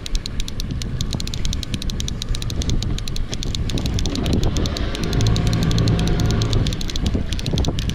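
Conventional trolling reel clicking rapidly and evenly, about eight to ten clicks a second, as its handle is cranked to bring in a hooked salmon. A steady low rumble runs underneath.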